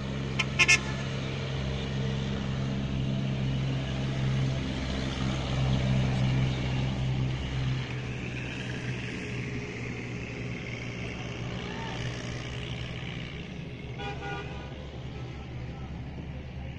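A vehicle engine idling, a steady low hum that weakens about eight seconds in, with two short horn toots about half a second in.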